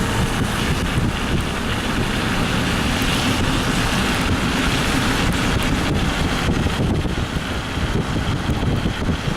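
Vehicle driving through floodwater: a steady rush of water and tyre noise, with wind buffeting the microphone.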